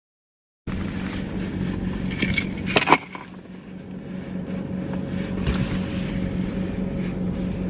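Steady low hum of a car idling, heard from inside the cabin. About two seconds in comes a short run of rattling and clicks, ending in a sharp click near the three-second mark.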